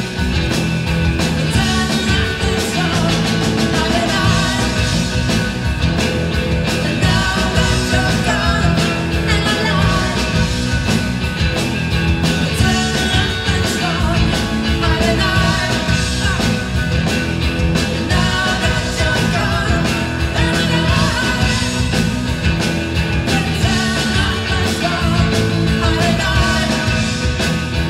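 Live rock band playing loud and steadily: a woman sings lead over electric guitar, bass guitar and a drum kit.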